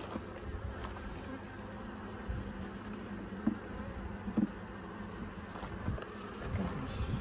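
Honeybees buzzing steadily around an open hive, with single bees flying close past a few times in short, louder swells.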